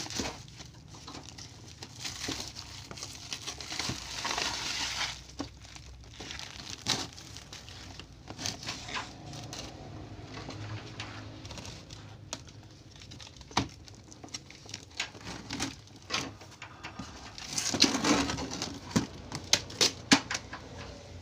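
Packaging being handled during an unboxing: plastic wrapping crinkling and rustling in uneven bursts, the longest near the start and again near the end, with scattered sharp clicks and taps of parts being picked up and set down.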